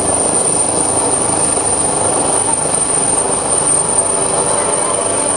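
Military search-and-rescue helicopter, an AgustaWestland HH-139A, hovering low: steady rotor and turbine noise.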